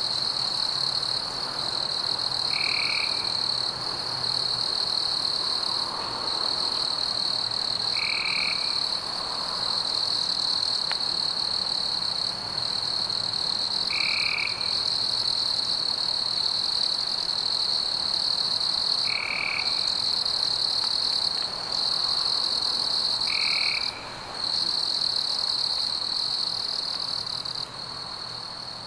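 Continuous high-pitched chorus of calling insects and frogs, with a short lower call repeating about every five seconds.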